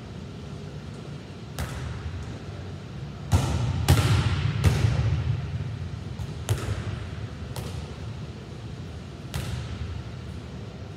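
A volleyball being hit against a gym wall and passed back, making about seven sharp smacks at uneven spacing, with the loudest run of hits in the middle. Each hit echoes briefly in the large hall.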